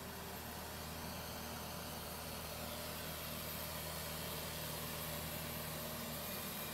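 Tractor's diesel engine running steadily while it pulls a laser land leveler bucket, with a steady hiss over it.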